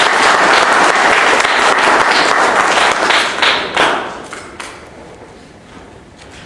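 Audience applauding, dying away about four seconds in to a few scattered claps.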